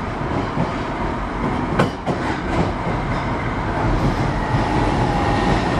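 Osaka Metro 31 series subway train with a Hitachi SiC VVVF inverter, running under way and heard from on board: a steady rumble and hiss of wheels on rail, with one sharp knock a little under two seconds in, as of a wheel over a rail joint.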